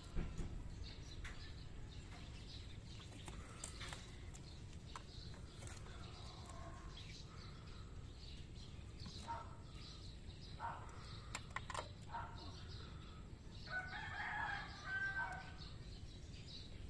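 A rooster crowing, with shorter calls about ten seconds in and the loudest, longest crow near the end, over scattered light clicks.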